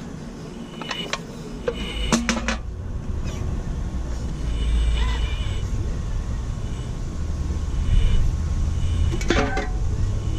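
Radio-controlled excavator working its claw: short bursts of motor whine start and stop several times over a low rumble, with sharp clanks and crunches as it grips and crushes aluminium drink cans, the biggest cluster about two seconds in and another near the end.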